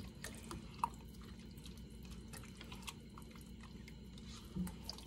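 Wooden spatula stirring a wet tomato, sausage and vegetable mixture in a stainless stockpot: faint, wet stirring with scattered small clicks.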